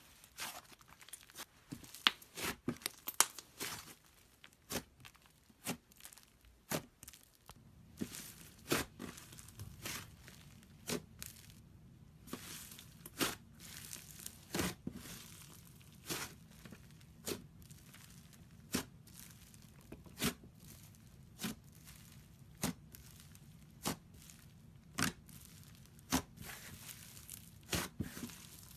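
Hands squeezing and stretching plasticine slime, giving sharp sticky pops and crackles. The pops come in a quick cluster at first, then settle into one every second or so.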